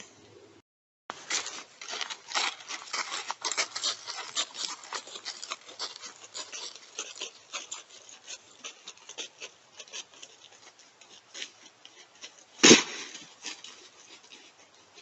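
An animal moving close to a trail camera, with dense irregular crackling and rustling that thins out later on. About three-quarters of the way through comes one loud, sharp sneeze.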